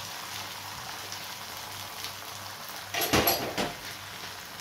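Beaten egg frying in a little ghee in a frying pan, giving a steady fine sizzle and crackle. A brief louder clatter comes about three seconds in.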